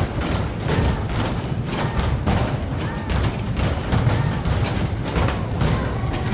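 Arcade basketball shooting machine in play: basketballs repeatedly thudding against the backboard and rim and rolling back down the ramp, over the machine's game music.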